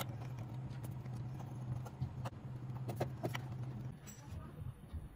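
Sharp clicks and taps of a screwdriver working screws on a ceiling fan's metal motor housing, over a steady low hum that stops about four seconds in.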